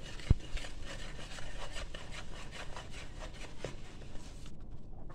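Wire whisk scraping and stirring through a thick flour batter in a bowl: a quick run of rubbing strokes with one sharp knock near the start, stopping about four and a half seconds in.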